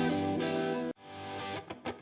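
Background music on distorted electric guitar. A held chord cuts off abruptly about a second in, a new chord swells up, and quick picked notes start near the end.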